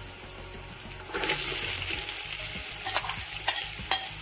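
Sliced onions dropped into hot oil begin sizzling about a second in, a steady frying hiss that carries on. A few sharp clicks against the pan come near the end.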